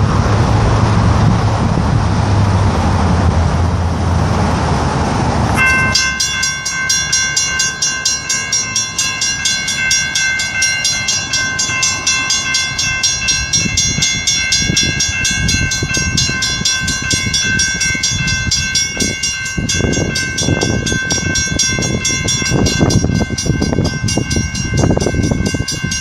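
A railroad grade-crossing bell starts ringing abruptly about six seconds in as the crossing signals activate, then keeps up a rapid, steady ringing while the gates come down. Before it there is wind noise and a vehicle engine running.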